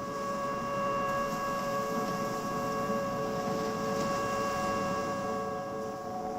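Battery-powered synthesizer holding a sustained chord of steady tones over a soft hiss. A lower note pulses on and off from about two seconds in, and near the end the upper notes drop away as a new note comes in.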